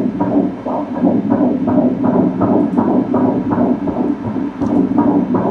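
Fetal heartbeat at about ten weeks of pregnancy, played through an ultrasound machine's Doppler speaker as a fast, even pulsing of nearly three beats a second.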